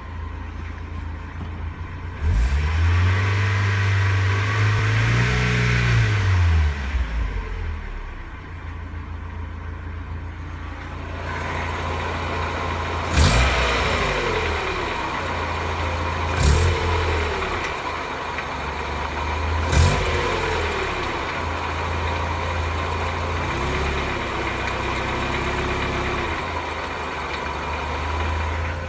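1991 Mazda Miata 1.6-litre four-cylinder engine idling, revved up and back down once for several seconds about two seconds in, then given three short, sharp throttle blips. Under it is a faint knock from the bottom of the block, which the owner suspects is a spun bearing.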